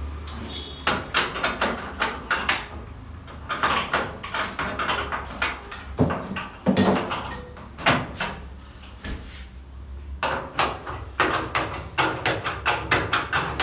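Metal-framed glass sliding door being worked during fitting: rapid clicking, knocking and rattling of the frame and a hand tool against it, in several bursts, over a steady low hum.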